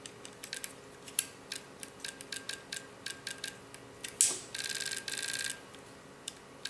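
Sharp clicks, one after another, from the trigger and firing solenoid of a PolarStar-converted airsoft rifle being worked dry. About four seconds in there is one louder click, then about a second of rapid, even buzzing, like the solenoid cycling in a short full-auto burst.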